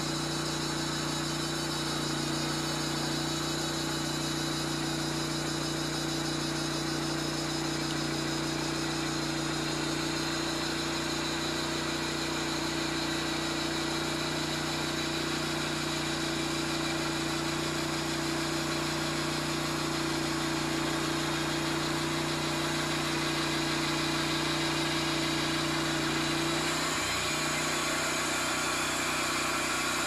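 Engine of a Vallee Green Monster Wide portable band sawmill running steadily under load as the band blade cuts through a 48-inch maple log. A little before the end the engine's steady note drops off.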